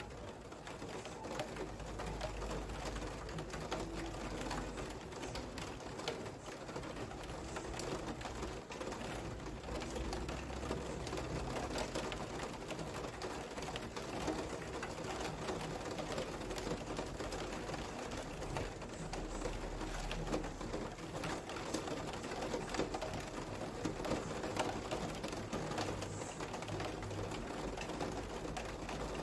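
Steady rain, a dense patter of many fine drop ticks at an even level.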